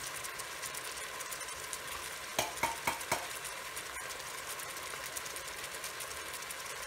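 Meatballs sizzling in a rice cooker's pot on the saute setting, a steady crackling hiss. About two and a half seconds in come four quick, sharp clicks.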